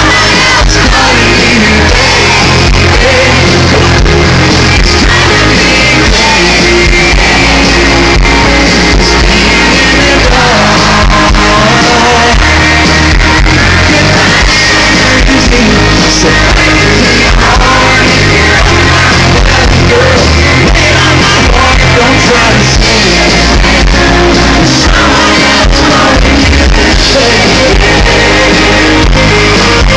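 A live country band playing loud at a concert, with singing and crowd yells over it.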